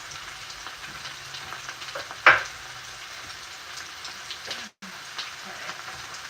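Potatoes and onions sizzling steadily as they fry in a pan. A brief, sharper sound about two seconds in is the loudest moment.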